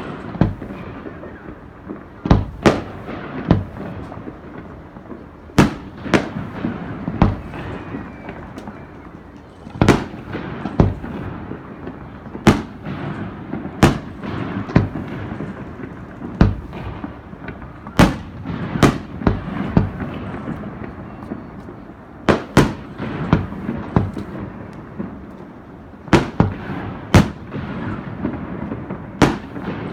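Fireworks display: aerial shells bursting one after another, a sharp bang every one to three seconds at irregular intervals, with a low rumble of echoes between the bangs.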